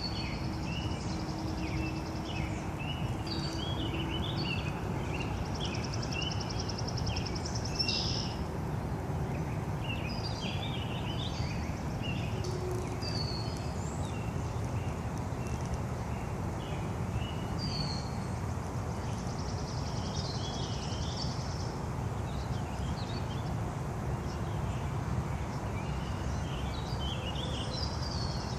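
Songbirds chirping and calling, with a high buzzy trill lasting a second or two several times, over a steady low background rumble.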